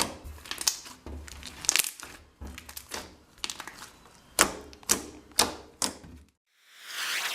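Thick, fluffy cornstarch slime being squished and poked by hand, giving a series of sharp clicks and pops. It stops about six seconds in, and a swelling whoosh rises near the end.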